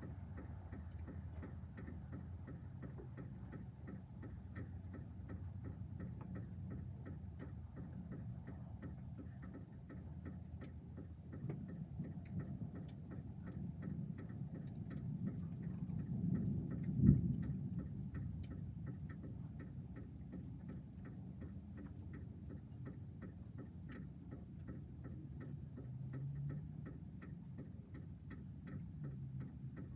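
Distant thunder rumbling low, building about a third of the way in to a sharp clap a little past halfway, then fading back to a rumble. A faint, steady ticking runs underneath.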